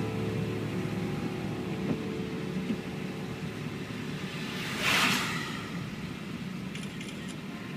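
Steady road and engine noise inside a moving car, with one brief whoosh about five seconds in.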